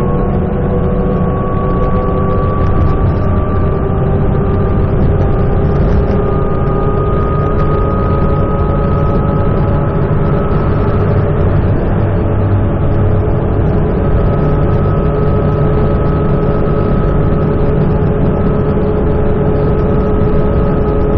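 Interior of a 2008 New Flyer C40LFR transit bus cruising at freeway speed: its Cummins Westport ISL-G natural-gas engine and drivetrain drone low and steady under road noise, with a thin whine that rises slightly over the first ten seconds or so and then holds steady.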